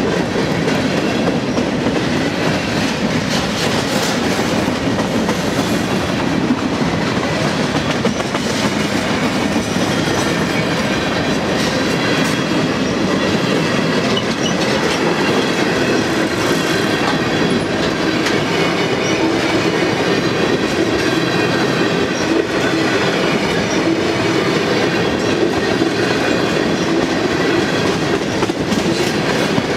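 CSX freight train of hopper and tank cars rolling past at close range: a loud, steady rolling of steel wheels on the rails.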